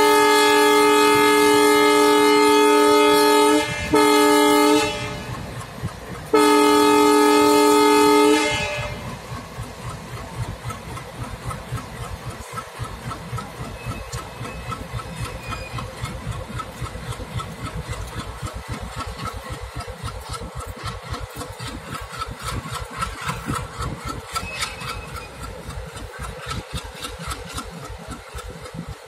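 Goods train locomotive horn sounding a long chord-like blast, a short one, then another long one. After that the train rolls on with a steady rhythmic clickety-clack of wheels over the rail joints.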